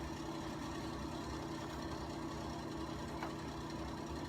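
A steady low machine hum, with a faint click about three seconds in.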